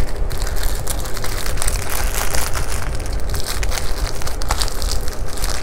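Small plastic bag of diamond-painting drills crinkling and rustling as it is handled, with many small clicks throughout.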